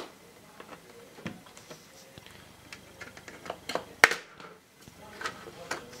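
Scattered light clicks and taps of a spatula tool working on a laptop's plastic casing, with one sharp click about four seconds in.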